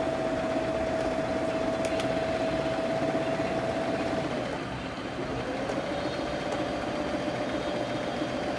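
Electric domestic sewing machine running steadily as it stitches a seam. About four and a half seconds in its motor slows almost to a stop, then picks up again at a slightly lower speed.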